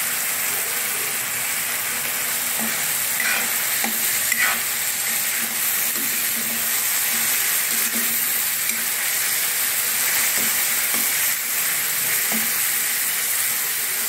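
Onion-tomato masala sizzling steadily in hot oil in a metal kadhai, stirred with a metal spatula that scrapes against the pan now and then.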